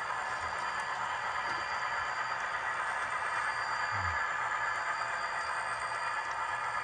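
ScaleTrains Milwaukee Road Bicentennial model diesel locomotive and its train running along layout track: a steady mechanical hum with a few faint clicks.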